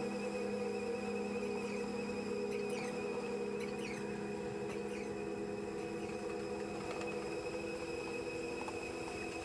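Steady mechanical hum made of several held tones, with a few faint ticks about three to four seconds in.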